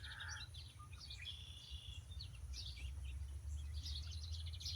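Small backyard songbirds chirping and twittering in quick, high notes and short trills, over a steady low rumble.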